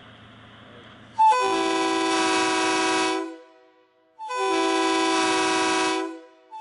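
Multi-chime locomotive air horn blowing two long blasts of a steady chord, each about two seconds, with about a second's gap between them; a third blast starts right at the end.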